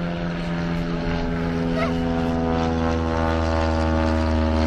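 Light propeller aircraft flying overhead, its engine droning steadily and growing louder as it comes closer.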